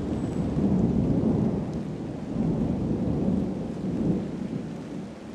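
Rolling thunder rumbling in two long swells, then fading near the end, over steady rain.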